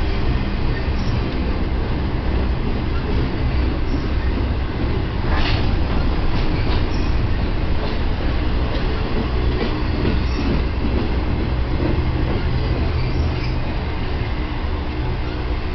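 BNSF intermodal freight train's container cars rolling past slowly as the train comes in to stop: a steady heavy rumble of steel wheels on rail with a faint wheel squeal. There is a sharp clank about five seconds in and a few lighter knocks.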